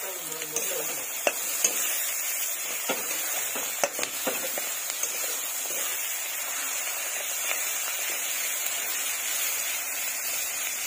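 Onions, green chillies and fish fat sizzling in hot oil in a wok, stirred with a spatula that clicks and scrapes against the pan a few times in the first five seconds. The steady sizzle runs on under the stirring.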